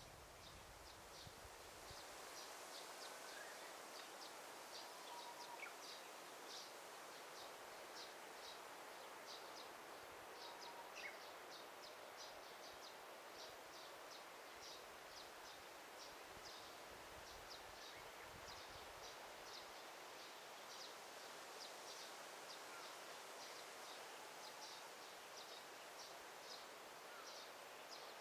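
Faint daytime forest ambience: a steady soft hiss under a continuous run of short, high chirps repeating several times a second in irregular groups, with a few scattered faint whistled bird notes.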